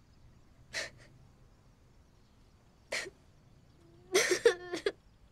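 A boy sniffling twice, then breaking into a short, wavering, whimpering sob about four seconds in.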